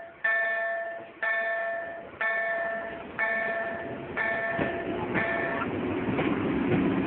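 A warning bell striking about once a second, each strike ringing and fading, stops about five and a half seconds in. Under it, the rumble of a train grows louder and carries on.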